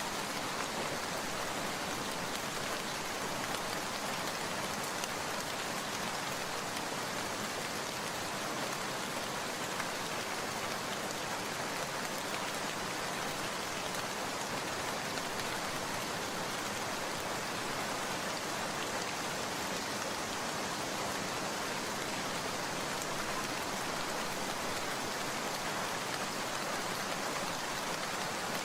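Steady rain falling, an even, unchanging hiss of many drops.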